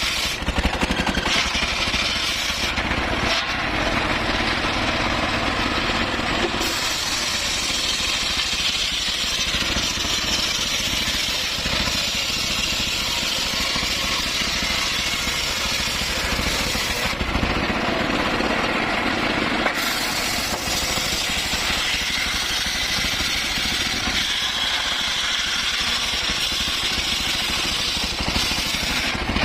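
Circular saw running and cutting wood. The machine noise is loud and continuous, and its hissing top end thins out twice for a few seconds.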